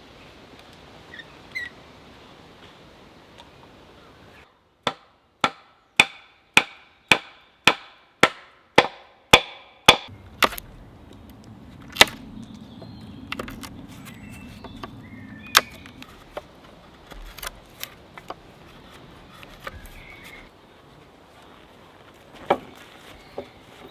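A tool striking wood about ten times in an even rhythm, a little over half a second apart, each blow ringing briefly. Scattered lighter knocks follow over a steady background hiss of rain.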